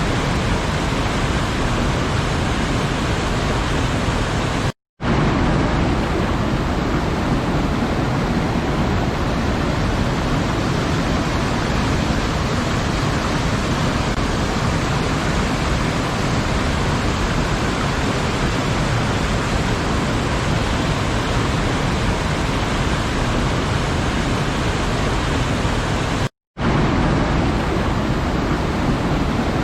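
Waterfall rushing in a steady, dense roar of falling water, cutting out to silence for a split second twice, about five seconds in and near the end.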